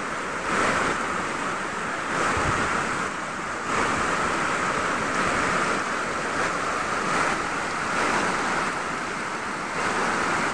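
Muddy, rain-swollen stream in spate, rushing fast through a stone channel: a steady, loud rush of water.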